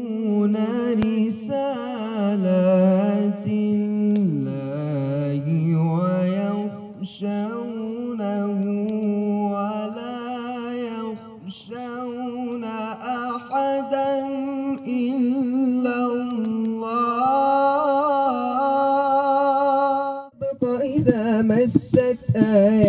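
A solo voice singing slowly and unaccompanied, holding long wavering notes in a chant-like melody. It stops abruptly about 20 seconds in.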